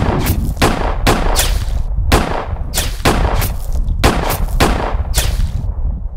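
Film battle sound effects: a sustained volley of gunshots, about three a second at an uneven pace, over a deep continuous rumble. The shots stop near the end and the rumble fades out.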